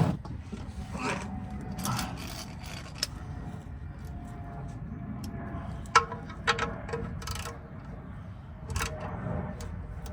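Metal clinks and scraping of a wrench on the oil drain plug as it is tightened, a few scattered sharp clicks with the loudest about six seconds in.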